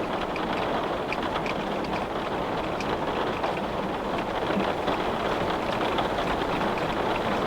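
Rain falling on a glass window pane: a steady rain noise with scattered small ticks of individual drops striking the glass.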